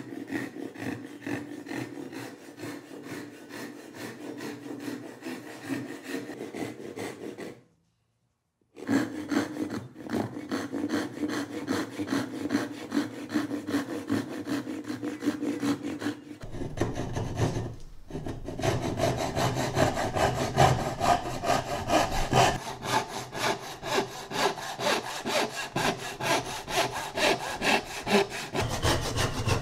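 Hand saw cutting tenon cheeks into a hardwood transom board, with rhythmic back-and-forth rasping strokes. It stops briefly about eight seconds in, then resumes.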